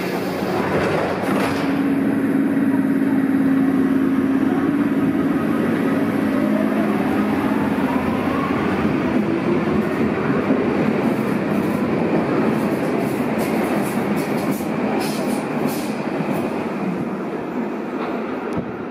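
Berlin U-Bahn F-series train with three-phase AC traction pulling out of an underground station: a steady hum, then the traction drive's whine rising in pitch as it gathers speed, over continuous wheel-on-rail rumble that eases off toward the end as the last car passes.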